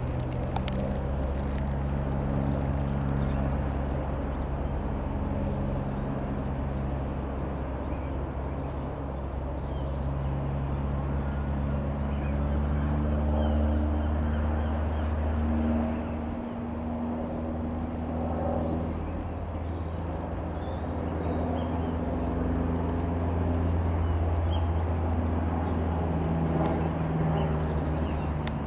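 Cessna 172 Skyhawk's four-cylinder piston engine droning from the air, its pitch drifting slowly up and down. Small birds chirp faintly.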